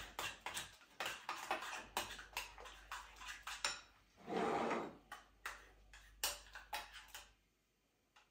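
A metal spoon clicking against a small glass bowl in quick repeated taps as a thick mayonnaise and yogurt sauce is stirred. About four seconds in there is a short scrape, then a few more taps, and the sound stops near the end.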